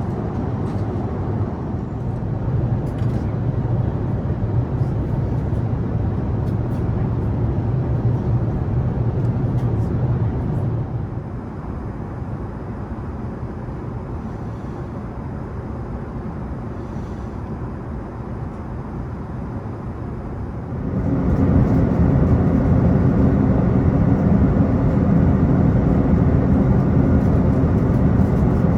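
Steady cabin noise inside an Airbus A380 from its Rolls-Royce Trent 970 engines and rushing air. It eases a little about a third of the way in, then jumps sharply louder with a heavier low rumble about two-thirds of the way through.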